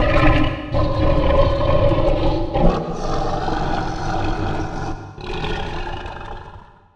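Edited kaiju roar sound effect for Gorosaurus: a run of long roars with a rumbling low end. The roaring breaks off briefly about a second in and again about five seconds in, then fades away just before the end.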